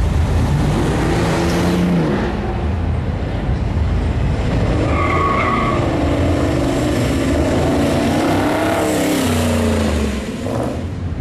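Classic car engines running and revving as the cars drive past, the pitch rising and falling with the throttle. A brief high-pitched squeal about five seconds in.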